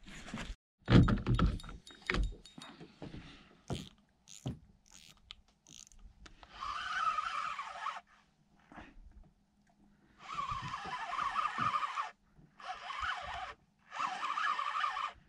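Knocks and handling thumps on the boat in the first few seconds. Then, from about six seconds in, a fixed-spool spinning reel whirs as it is wound in four runs of a second or two each, with short pauses between them.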